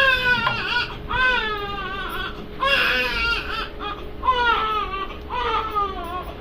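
Infant crying: about five wailing cries in a row, each falling in pitch.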